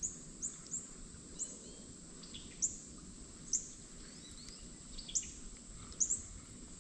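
Short, high bird chirps, each sliding quickly downward, repeated at irregular intervals about a dozen times, over a steady high-pitched insect drone and a low, even outdoor background rush.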